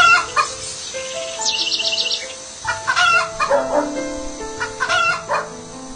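Chickens calling, with a rooster crowing and hens clucking in short bursts near the start, around the middle and again near the end, over background music of held notes.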